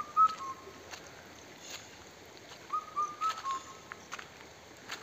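A bird's whistled song: a short phrase of clear notes that steps slightly down at the end. It is heard at the start and again about three seconds in, with a few short sharp clicks between.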